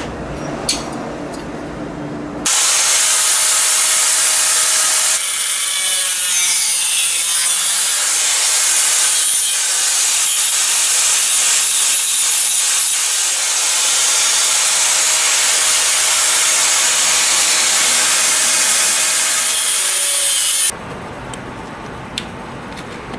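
Handheld angle grinder switched on about two seconds in, its disc grinding on the metal windshield trim moulding with a steady motor whine under a loud hiss. It cuts off abruptly near the end.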